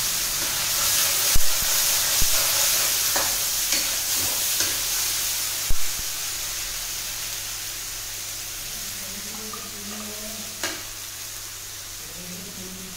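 Tomato-and-onion paste sizzling in hot mustard oil in a kadhai just after going in. The hiss dies down gradually as the gas is lowered, broken by a few sharp knocks of the stirring spoon against the pan.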